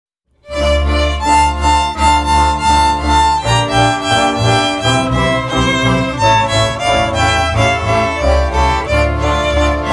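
Slovak folk string band of fiddles, viola kontra, cimbalom and double bass playing an instrumental introduction, a fiddle leading the tune over a double bass line. The music starts about half a second in.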